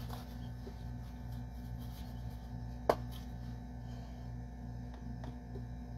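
A barbecue sauce bottle being handled over a plastic tub, with faint clicks and one sharp click about three seconds in, over a steady low hum that pulses about twice a second.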